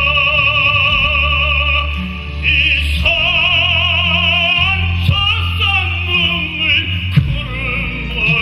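Instrumental music: a high, sustained melody with wide vibrato, voice-like in tone, played over a recorded accompaniment with a steady bass line.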